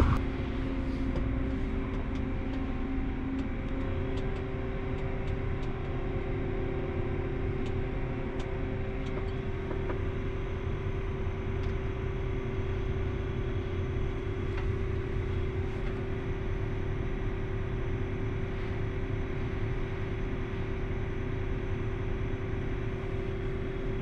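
Combine harvester's diesel engine running steadily, heard from inside the cab, with a constant hum. A second, higher tone drops out about nine seconds in.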